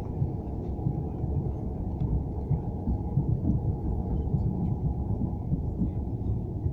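Passenger train in motion, heard from inside the carriage: a steady low rumble of the wheels running on the rails.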